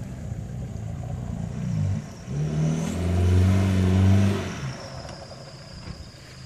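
Land Rover Discovery's 2.5-litre turbo-diesel engine revving hard under load while climbing a soft sand dune. The pitch rises about two seconds in, it is loudest around three to four seconds in, then it eases off.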